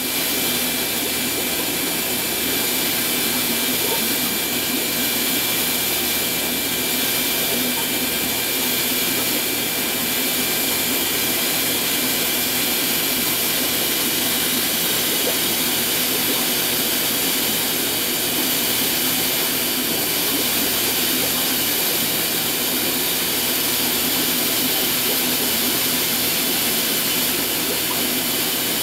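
Steady, unbroken rushing hiss of running aquarium equipment, with a faint high whine held through it.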